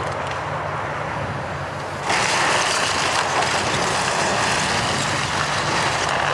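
Komatsu hydraulic excavator demolishing a wood-frame house: its diesel engine runs steadily, and about two seconds in the sound turns suddenly louder and harsher as the machine works through the debris.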